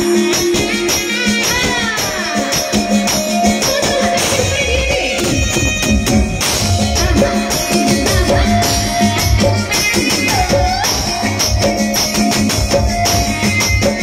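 Live band music over stage speakers: a female singer backed by keyboard and electric guitar, with a quick jingling percussion beat, and heavy bass coming in about four seconds in.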